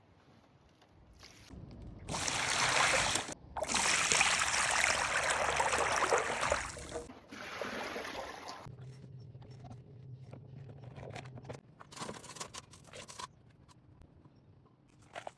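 Water rushing and splashing for about five seconds as the water feature's top bowl is emptied, with a brief break near the start; afterwards lighter scrapes and knocks.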